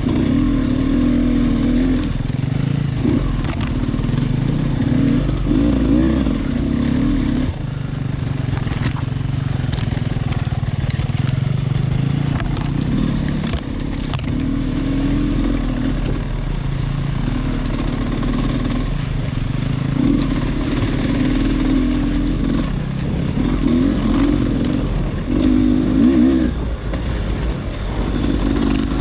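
Dirt bike engine being ridden off-road, revving up and dropping back in repeated surges as the throttle is worked, with occasional sharp knocks from the bike over rough ground.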